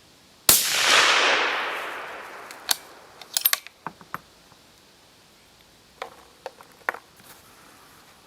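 A single shot from a suppressed 6.5x55 bolt-action rifle (a 1900 Carl Gustaf fitted with a Reflex suppressor), with its report fading away over about two seconds. It is followed by a quick run of sharp metallic clicks and, a few seconds later, a few more clicks, as the bolt is worked to chamber the next round.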